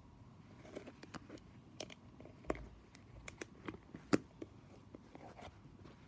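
Scattered light clicks and taps of a plastic putty tin and small toys being handled on a carpet, two sharper knocks standing out about two and a half and four seconds in.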